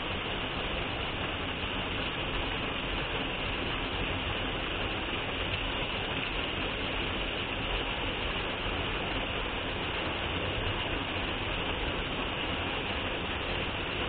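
Small waterfall pouring onto rock and into a pool close by: a steady rushing of falling water.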